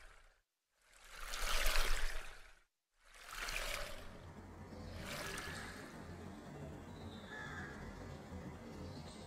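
Swells of rushing, water-like noise with brief dead silences between them, then a faint steady outdoor ambience with a low hum and a few faint bird calls.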